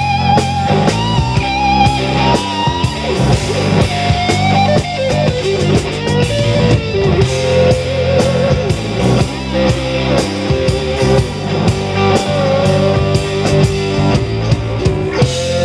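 Blues-rock band playing an instrumental passage: an electric guitar lead with bent, wavering notes over bass and a drum kit, settling into a held chord near the end.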